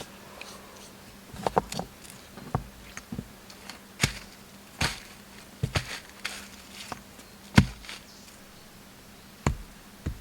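Irregular sharp knocks and taps, about a dozen spread unevenly, the loudest about three-quarters of the way through, like something hard being handled or struck.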